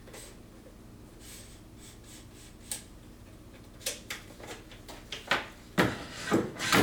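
Handling noises of a track saw and its guide rail being set up for a bevel cut: a few faint ticks, then a run of clicks and clunks in the last three seconds, loudest near the end. The saw is not running.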